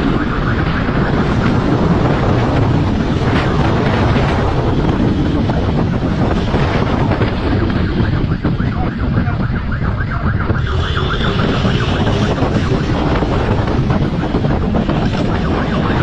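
Wind rushing over the microphone of a camera on a moving motorcycle, with the bike's engine and road noise underneath. A brief high tone comes in about eleven seconds in.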